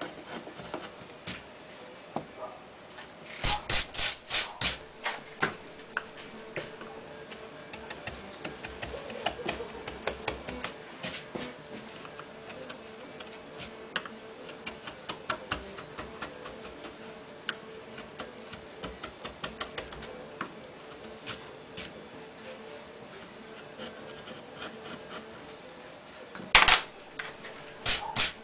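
Hand carving gouge cutting into a wooden board in short strokes, a run of sharp scraping clicks as chips are pared away. Near the end, a few louder sweeping strokes as the chips are brushed off the carving.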